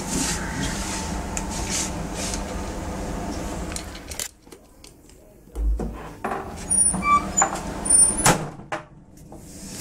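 Cat eating dry kibble from a plastic gravity feeder: scattered clicks and knocks of food and face against the plastic tray. These sound over a steady background hum that cuts out suddenly about four seconds in.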